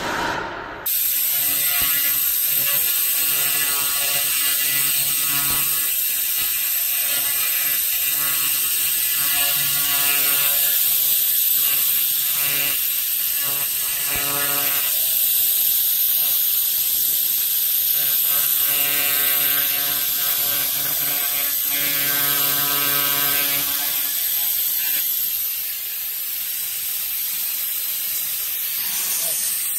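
Handheld 300 W pulsed laser cleaner ablating dirt from a steel wheel rim: a loud, steady, high whine under a low buzz. The buzz drops out for a few seconds midway and goes quieter near the end.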